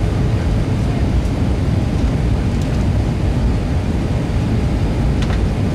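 Steady low rumble of an Airbus A320 airliner in flight, heard inside the passenger cabin: engine and airflow noise.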